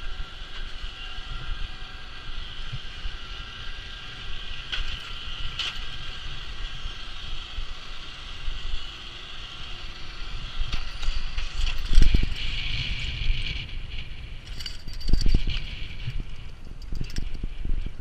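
Edges sliding down a groomed piste, a continuous hiss and scrape over packed snow with wind rumble on the microphone. A few harder jolts about two-thirds through and again a few seconds later, the loudest moments.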